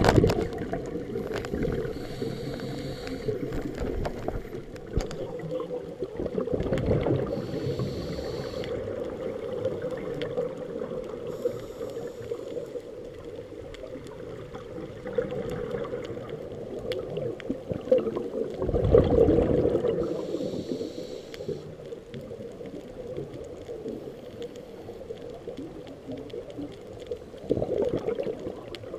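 Scuba breathing recorded underwater by a camera in its housing: a steady, muffled water rush with three louder gurgling surges of regulator exhaust bubbles, the longest about two-thirds of the way through.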